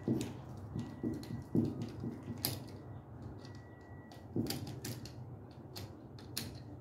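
A screwdriver working the terminal screws of a 15 amp duplex receptacle held in the hand: irregular small metal clicks and scrapes, with a few louder knocks as the wired receptacle is handled.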